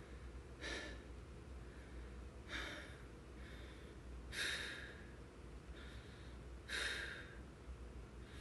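A man breathing hard as he catches his breath between sets of exercise: a louder breath about every two seconds, with fainter ones between.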